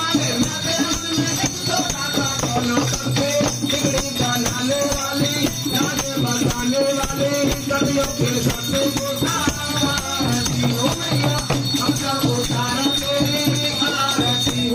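Devotional aarti music: a song with a wavering voice line over steady rattling, tambourine-like shaken percussion.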